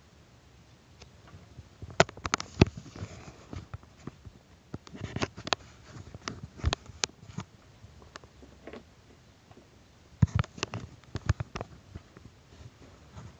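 Handling noise: scattered sharp clicks and knocks as a plastic toy RC truck is moved about by hand close to the microphone. They come in three bunches, about two seconds in, around six seconds, and about ten to eleven seconds in.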